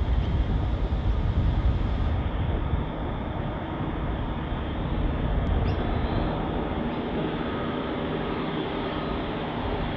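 Distant diesel-electric locomotives of an approaching freight train, a steady low engine rumble with faint steady tones over it.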